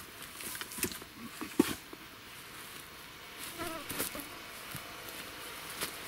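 A fly buzzing close by, wavering in pitch as it passes, with a few light knocks and clicks, the sharpest about a second and a half in.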